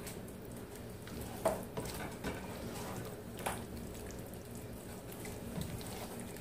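Silicone spatula stirring thick vegetable soup in a stainless steel pot: wet sloshing and squelching, with a few light knocks of the spatula against the pot, over a low steady hum.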